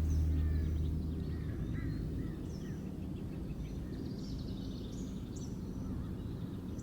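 A low sustained meditation drone fades out over the first couple of seconds. It leaves a bed of low steady noise with scattered short bird chirps, typical of a nature-ambience layer in a healing-frequency track.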